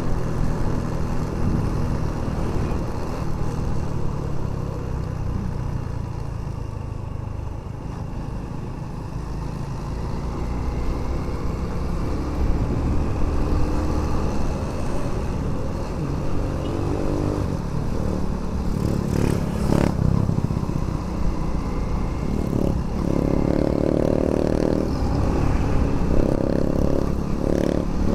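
Motorcycle engine running under way, with steady wind and road rush on the rider's microphone; the engine note climbs and grows louder over the last few seconds as it accelerates.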